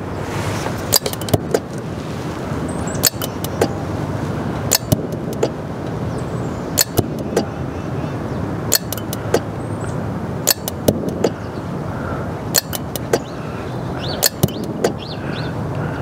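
Norcold RV refrigerator's control relays clicking on and off in quick clusters of two or three sharp clicks, about every one and a half to two seconds. The clicking is the sign of AC ripple from a failing power converter on the DC supply.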